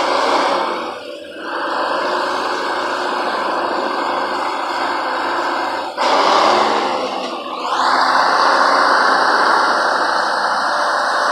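Blown GM Detroit two-stroke inline-six diesel of a 1954 LeTourneau-Westinghouse Tournarocker running loud. It drops off briefly about a second in and again past the middle, then rises in pitch and holds steady.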